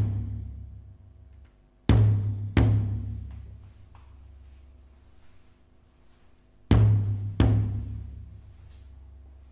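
Deep, booming drum strokes in pairs about 0.7 s apart, one pair just after two seconds and another near seven seconds, each dying away slowly over a faint held chord. It is music played back through a small homemade 40 mm speaker with passive radiators, as a bass test.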